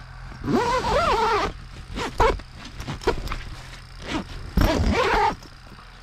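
Two drawn-out wordless vocal sounds, each about a second long, rising and then falling in pitch, with a few knocks between them over a low steady hum.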